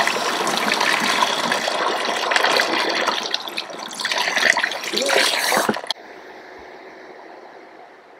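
Running water spraying and splashing, cutting off abruptly about six seconds in, leaving a faint steady hum.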